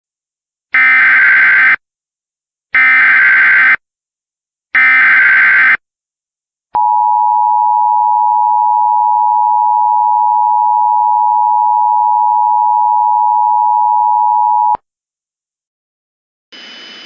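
Emergency Alert System (EAS) SAME header: three identical one-second bursts of warbling data tones, a second apart, followed by the EAS two-tone attention signal held steady for about eight seconds and cut off sharply. Together they mark the start of an emergency alert broadcast. A quieter hiss with a high whistle starts just before the end.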